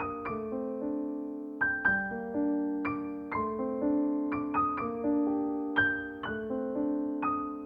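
Background music: a soft piano piece with struck notes and chords that ring and fade.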